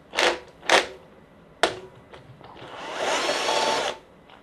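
Socket wrench undoing a small inch-size bolt on a lawnmower engine: two short rasping strokes and a sharp click, then a steady hissing whir of about a second and a half that stops abruptly.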